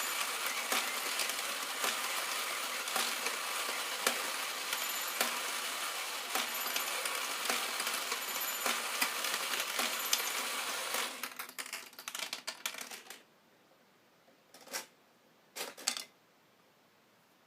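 1992 Epoch battery-operated Doraemon pachinko toy running: a dense, continuous clatter of small balls rattling through the pins. The clatter thins to scattered clicks about eleven seconds in and stops about two seconds later, followed by two short clattering bursts.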